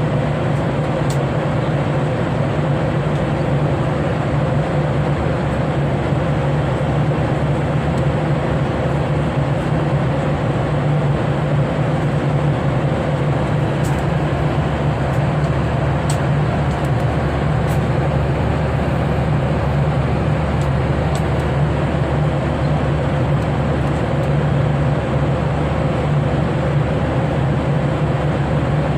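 Steady cabin noise of an airliner in flight: an even rushing drone with a strong low hum underneath, a few faint ticks now and then.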